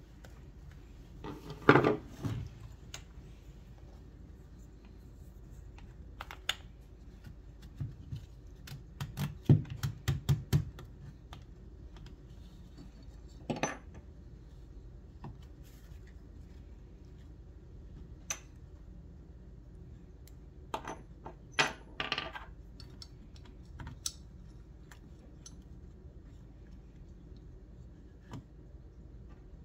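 Scattered clicks, taps and knocks of a screwdriver, screws and metal and plastic parts handled on a workbench as a vintage jigsaw's cover is screwed back on and its metal base plate fitted. The louder clatters come about two seconds in, around ten seconds in and around twenty-two seconds in.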